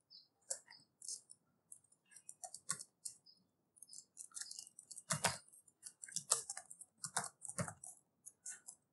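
Typing on a computer keyboard: irregular key clicks, with a handful of heavier keystrokes in the second half.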